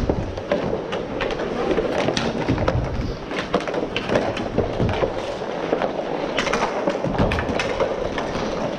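Inline hockey skate wheels rolling and clattering over plastic sport-court tiles, with frequent sharp clicks and clacks, over a steady hum.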